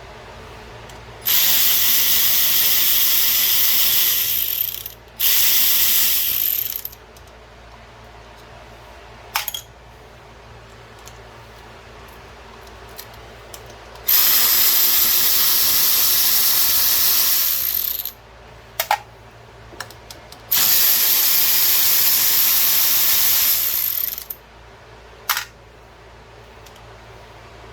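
Power ratchet run in four bursts of a few seconds each, spinning out bolts, with a few short metallic clinks in the gaps between bursts.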